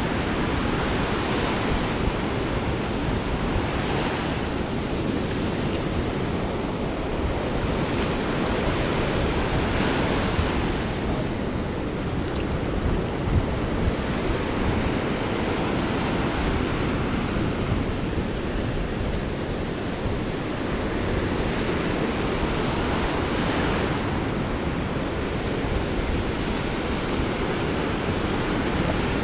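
Surf washing in and out over the sand in a steady rushing noise, with wind buffeting the microphone and adding a low rumble.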